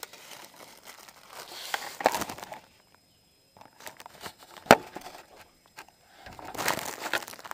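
Camera handling noise: irregular rustling and scraping as the camera is moved about and set down, with one sharp knock a little past halfway.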